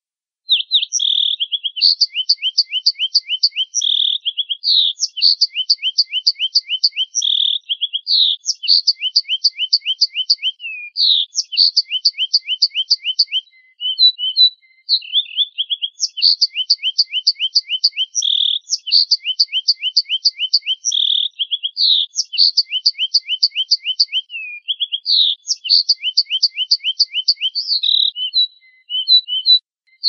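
Finch song: a fast, unbroken stream of high trilled phrases, each a quick run of short clipped notes, repeating with only a couple of brief breaks. It begins out of silence about half a second in.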